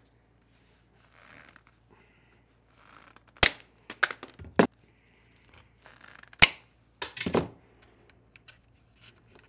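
Side cutters snipping through hard plastic shock mounts: two sharp snaps about three seconds apart. Lighter clicks and rustles of the parts being handled fall between and after them.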